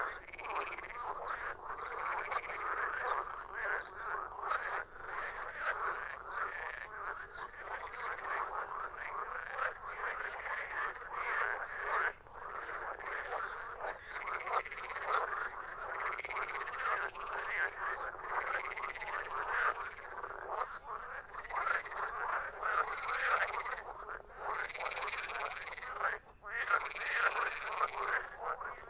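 Many frogs croaking together in a dense, continuous chorus of overlapping calls.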